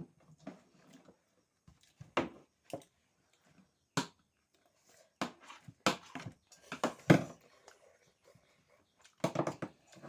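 Close-up eating sounds of someone eating chicken momos: irregular wet smacks and chewing clicks, spaced a second or so apart, with a quick run of them near the end.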